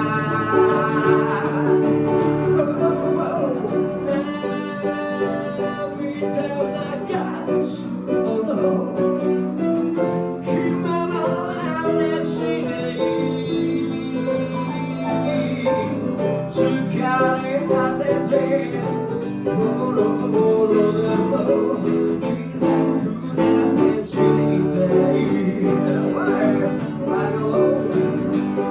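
Instrumental passage of a guitar-led band song, guitars playing steadily between sung verses.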